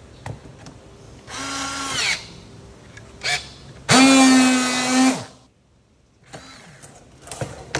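Battery-powered V2 strapping tool running a strapping cycle. First comes a short burst of the tensioning motor, rising in pitch at its end, then a click. Then the friction-weld motor runs steadily and louder for about a second, and there is another click near the end; the tool is now working normally after repair of its friction-weld function.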